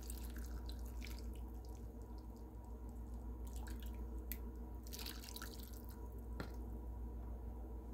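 Hot broth poured from a ladle into a bowl of food, dripping and splashing, with a few light clicks scattered through, over a steady low hum.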